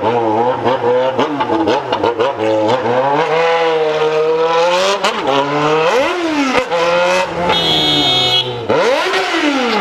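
Straight-piped Yamaha XJ6's inline-four engine revving up and falling back again and again under on-off throttle, loud and raw. A brief high squeal sounds near the end.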